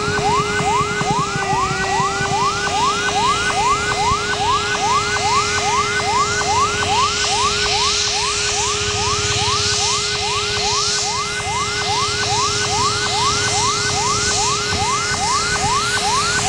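CASA C-212's Garrett TPE331 turboprops running with a steady whine as the aircraft rolls on the runway. Over it, a rising sweep like a siren's yelp repeats a little over twice a second.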